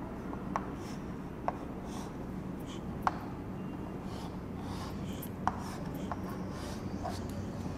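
Chalk drawing on a chalkboard: faint strokes with about five sharp clicks of the chalk hitting the board, over a steady low hum.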